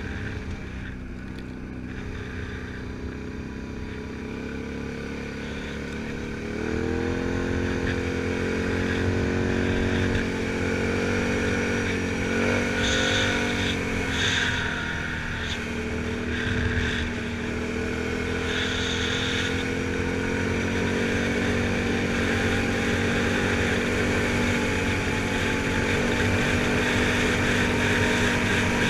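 Can-Am Outlander 1000 XT-P ATV's V-twin engine running while riding. About seven seconds in, the engine note rises and gets louder as the quad speeds up, then holds fairly steady.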